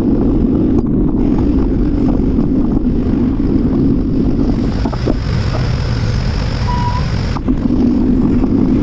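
Steady rumble of city street traffic mixed with wind and rolling noise from a moving bicycle, with a brief high-pitched tone about seven seconds in.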